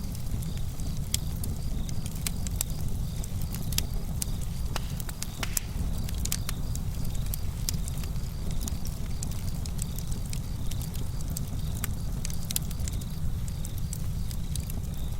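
Campfire crackling: irregular sharp pops and snaps over a steady low rumble.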